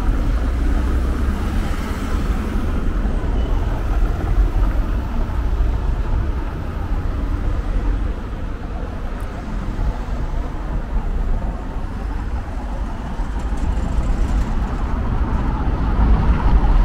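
City street traffic noise with a heavy, steady low rumble.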